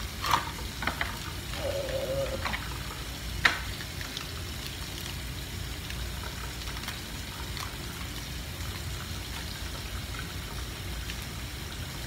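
Hands handling a freshly opened bar of soap: a few sharp clicks and rustles in the first three and a half seconds. A steady hiss runs underneath the whole time.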